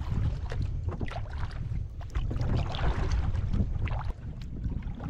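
Wind buffeting the microphone with a steady low rumble, over irregular splashes and lapping of choppy water as a folding kayak is paddled across a marsh channel.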